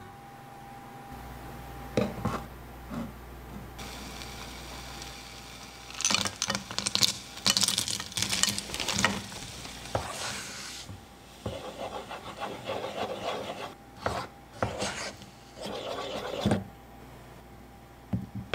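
A spatula scraping and stirring around the inside of a nonstick saucepan as chocolate is mixed into hot cream for ganache. Repeated scraping strokes start about six seconds in and quicken in the second half.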